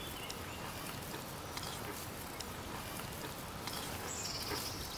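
Soft rustling of grass and rope as hands work at a rope binding, with a few faint clicks over a steady outdoor hiss; a bird chirps near the end.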